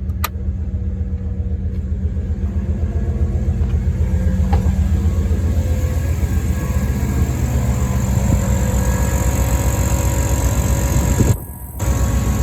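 Dodge Ram 1500 pickup's engine idling steadily, a low, evenly pulsing rumble. The sound briefly drops out for about half a second near the end.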